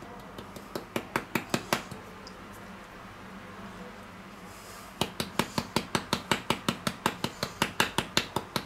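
Ground paprika shaken out of a spice jar, the jar clicking with each shake. A short run of sharp clicks comes at the start, then a pause, then a steady run of about four clicks a second from about five seconds in.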